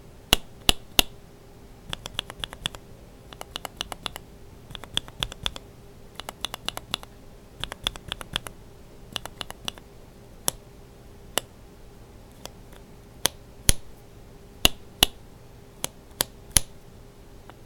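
Linear mechanical keyboard switches, Kailh burgundy stems in BSUN brown housings, one with the stock clear top and one with a Yok top, being pressed and released, each press giving a sharp bottom-out and top-out click. For the first ten seconds or so the presses come in quick bursts, and after that as single presses about a second apart.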